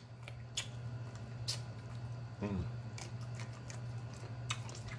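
Close-miked mouth sounds of eating: wet smacks and sharp lip clicks scattered through, as he chews and licks sauce from his fingers, with a brief low hummed sound about halfway and a steady low hum underneath.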